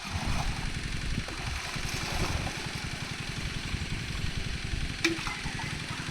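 Small engine-driven water pump running steadily with a fast, even low beat and a hiss of water over it, as water is pumped out of a pond. A single sharp click comes about five seconds in.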